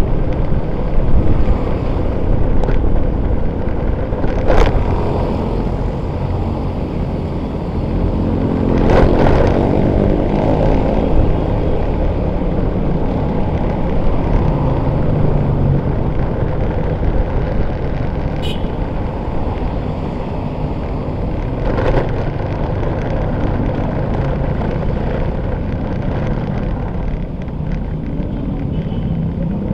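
Riding noise from a motorcycle in city traffic: a steady rumble of engine and wind on the microphone, with other vehicles passing. The loudest swell comes about nine seconds in.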